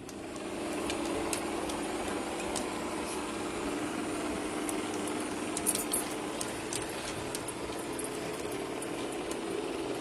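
Shark IQ Robot self-emptying robot vacuum cleaning a tile floor: a steady whirring hum from its suction motor and brushes, with occasional small clicks.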